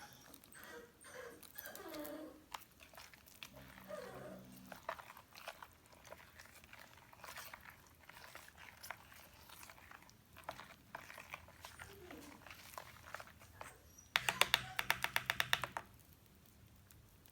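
Puppies whimpering now and then in short, curving cries, over small clicks and knocks of kitchen handling. Near the end comes a loud run of rapid clicking, about ten a second, for some two seconds.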